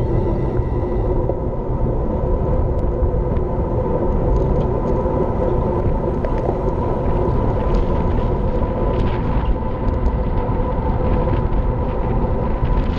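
Wind buffeting an action camera's microphone on a fast road-bike descent: a steady, dense rumble.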